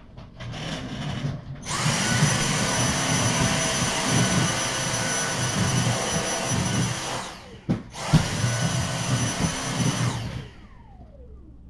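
Vacuum cleaner running: it starts up, runs steadily, cuts out for a moment partway through, runs again, then is switched off and winds down with a falling whine near the end.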